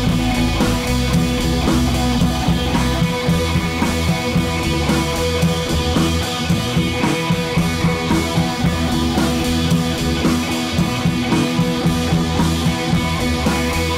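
Background rock music with drums and electric guitar and a steady beat.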